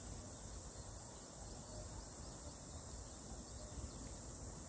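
Faint, steady high-pitched drone of insects singing, over a low rumble.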